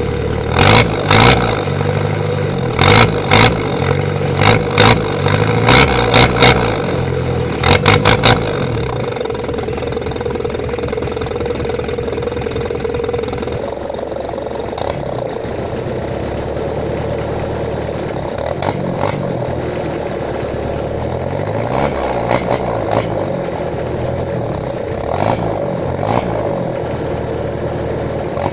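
Mitsubishi L300's 4D56 four-cylinder diesel running through a straight pipe with the muffler deleted. A quick series of short, loud barks comes in the first eight seconds, then the engine note rises and falls through the rest.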